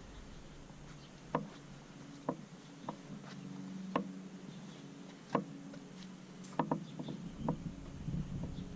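Footsteps on a garage floor: scattered single knocks, irregularly spaced half a second to a second and a half apart, over a faint steady hum.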